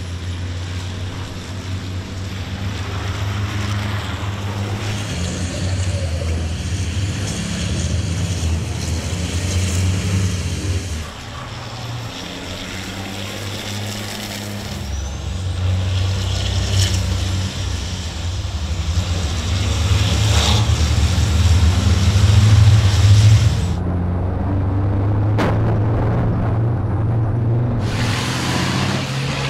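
Racing trucks' turbo-diesel engines running hard as the trucks lap the circuit. The engine note rises and falls, and it changes abruptly about eleven seconds in and again near the end.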